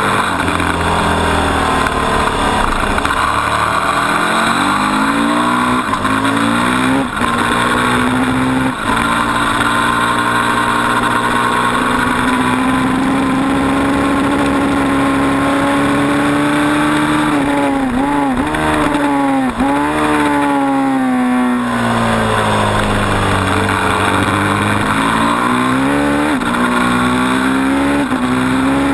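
KTM RC8R's V-twin engine at high revs, heard onboard during a fast lap: the pitch climbs with brief breaks at upshifts about 7 and 9 seconds in, dips sharply several times around two-thirds of the way through as it shifts down for a corner, then rises again near the end.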